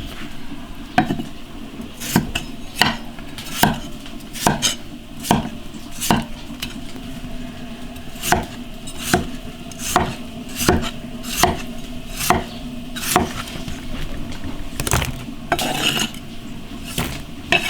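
Cooking utensils knocking against a pot or wok in a steady series of sharp clacks, about one every two-thirds of a second, over a constant background hiss.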